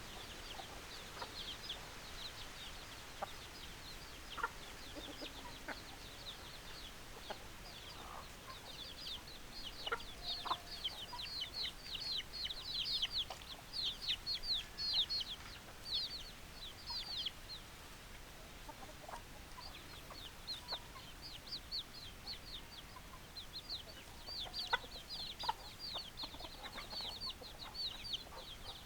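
Chickens calling: quick runs of short, high-pitched falling chirps, busiest in the middle and again near the end, with occasional lower clucks underneath.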